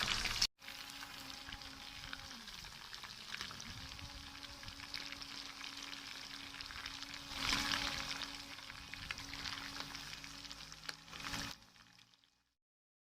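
Seasoned chicken pieces deep-frying in oil over a low flame, a steady crackling sizzle. It cuts out sharply just after the start, comes back quieter, swells for a moment around the middle, and stops near the end.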